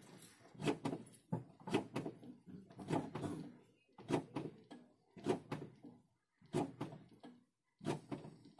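Brake pedal of a VW Golf Mk2 pumped several times: a series of short clunks and knocks, roughly one a second, as the freshly refitted front caliper's piston is pushed out against the pads.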